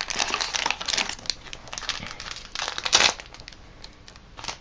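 Foil trading-card booster pack wrappers crinkling as they are handled, dense for the first three seconds and quieter near the end.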